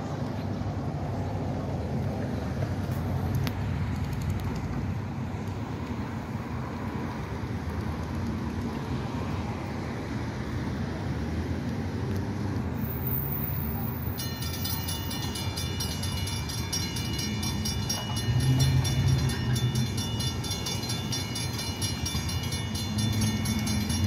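Low rumble of a train that is out of sight. About 14 seconds in, a railroad crossing's electronic warning bell starts ringing rapidly as the crossing gates go back up after the train has cleared.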